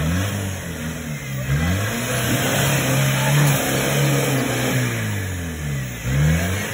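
Off-road 4x4 vehicle's engine revving hard under repeated throttle, its pitch rising and falling several times, held high in the middle, then dipping and surging again near the end.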